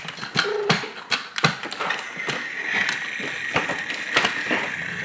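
Hard plastic toy track pieces clicking and knocking together as they are handled, with a steady high-pitched whine joining about two seconds in.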